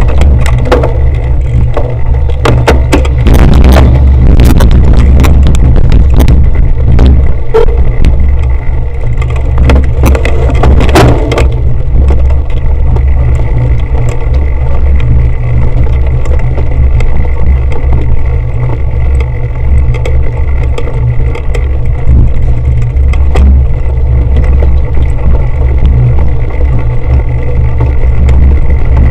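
Cyclocross bike ridden fast over bumpy grass and dirt, heard through a camera mounted on the bike: a constant loud, low rumble of wind buffeting and frame vibration, with frequent knocks and rattles from bumps that thin out after about twelve seconds.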